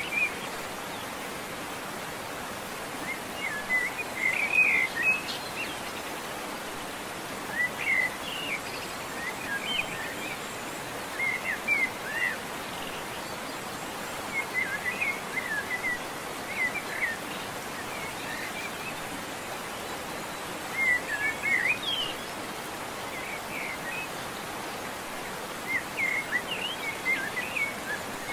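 A songbird singing short, quick chirping phrases every few seconds over a steady outdoor hiss.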